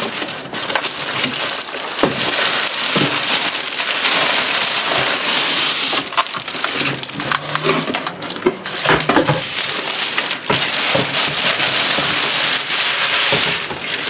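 Thin plastic bag rustling and crinkling loudly as a humidifier is lifted out of its cardboard box and unwrapped, with a few knocks of cardboard and plastic.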